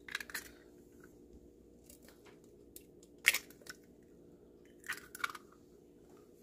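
A hen's egg cracked on a bowl and broken open by hand. A few small shell clicks come at the start, a sharp crack about three seconds in, then more crunchy shell clicks about five seconds in as the shell is pulled apart. A faint steady hum runs underneath.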